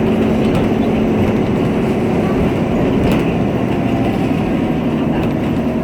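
Steady drone of a Nova Bus LFS city bus's engine and road noise heard from inside the cabin while it is moving, with a low hum and a few faint clicks and rattles.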